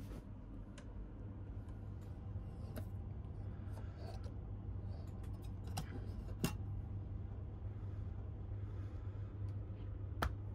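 Steady low hum in a train sleeping compartment, with a few sharp metallic clicks as a metal fold-down cup holder is handled. The loudest click comes about six and a half seconds in, and another comes near the end as the storage net is touched.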